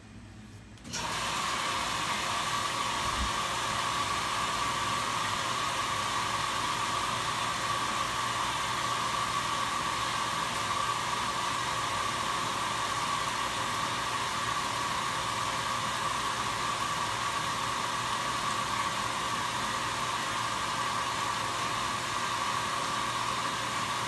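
Speed Queen top-loading washing machine filling with water: a steady rush of water pouring into the tub, starting suddenly about a second in.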